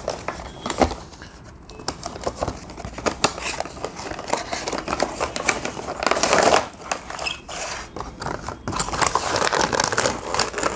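Cardboard retail box and clear plastic packaging tray being opened and handled: rustling, scraping and a run of small clicks and knocks, with louder rustling about six seconds in and again near the end.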